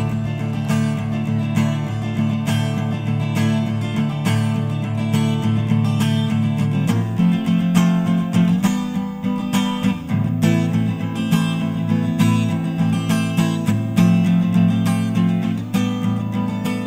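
Acoustic guitar music, strummed chords in a steady rhythm, coming in suddenly at the start and changing chord about seven seconds in.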